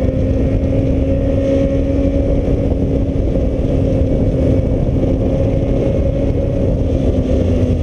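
Heavy wind noise buffeting the microphone of a motorcycle at road speed, over the Suzuki Bandit's inline-four engine running at a steady pitch.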